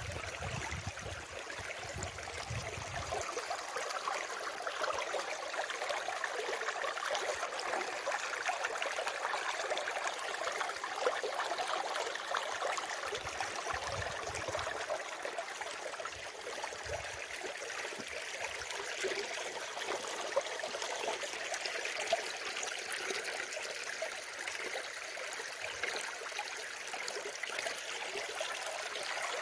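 Running water babbling and trickling steadily, as in a small stream, with a few brief low rumbles near the start and about halfway through.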